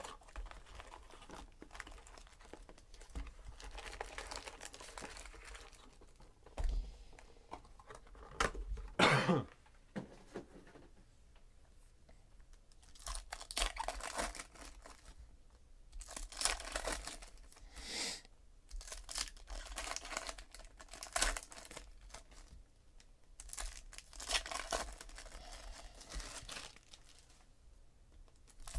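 Foil wrappers of 2017 Donruss Optic baseball card packs being torn open and crinkled, in repeated short bursts, with a louder burst about nine seconds in.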